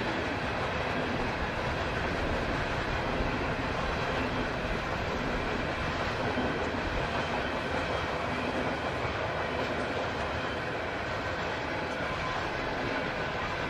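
Norfolk Southern freight train's cars rolling past, a steady rumble of steel wheels on the rails.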